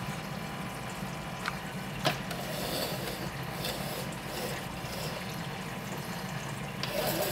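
Aquarium water circulating and trickling over a steady pump hum, with a few sharp clicks, the loudest about two seconds in.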